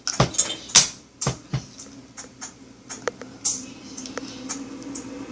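A quick run of sharp clicks and knocks from small objects being handled, thinning to a few scattered clicks after about a second and a half.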